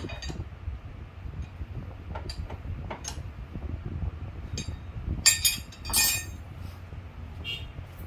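Light metallic clinks and taps of tools and parts being handled, with two louder clattering knocks about five and six seconds in, over a steady low rumble.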